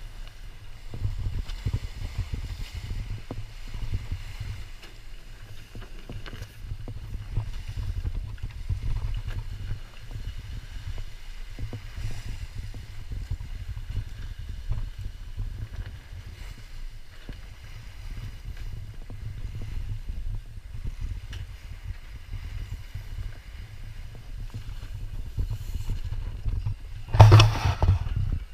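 Wind buffeting the camera microphone in gusts, with sea water rushing along the hull of a sailboat under way in choppy seas. Near the end there is a brief, loud burst.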